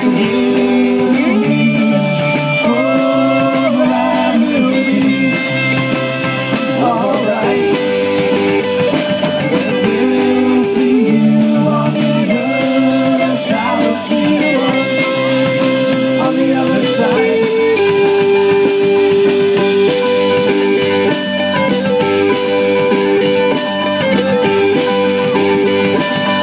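Live folk-rock band playing: mandolin, acoustic and electric guitars and a drum kit, with a steady fast tick of cymbals over the sustained, changing notes.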